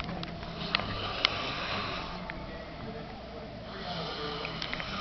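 A man snoring in his sleep: noisy rasping breaths, one through the first two seconds and another starting near the end, with a couple of sharp clicks about a second in.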